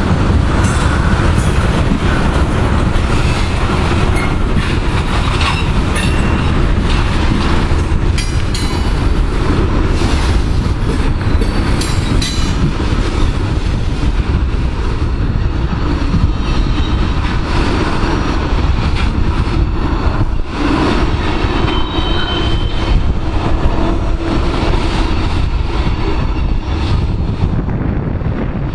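Freight train of tank cars and covered hoppers rolling past, steel wheels clicking over the rail joints, with a brief faint squeal about two-thirds of the way in. The high end thins near the end as the last cars move away.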